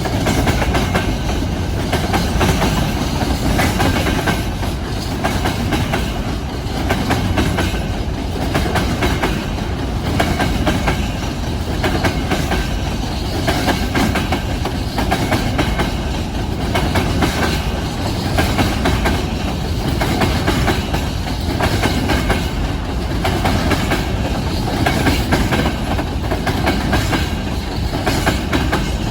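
Freight train running steadily, its wagon wheels clacking over the rail joints with a continuous rumble.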